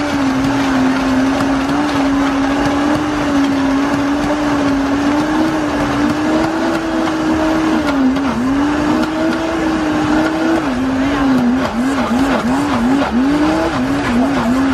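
Countertop blender motor running at high speed, blending a fruit shake, with a steady whine. About ten seconds in, the pitch starts dipping and recovering about twice a second.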